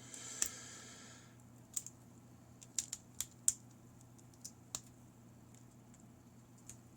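Small hand-tool work on a bobby pin as its plastic-dipped tips are pulled off: a short scraping rasp in the first second, then a scatter of light sharp clicks, about nine in all, of metal tool and wire.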